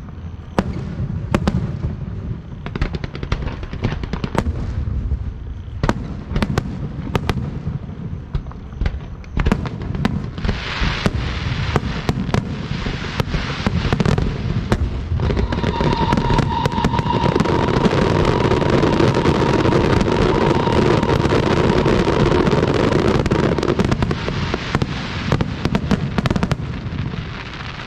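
Aerial fireworks going off: separate sharp bangs at first, then about ten seconds in a dense, continuous barrage of crackling bursts with a steady whistle, easing off near the end.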